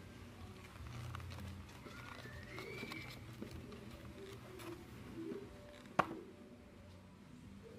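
Cardboard packaging handled as two AA batteries are worked out of their slot in a paper insert: light scraping and small clicks, with one sharp click about six seconds in. A bird chirps faintly in the background.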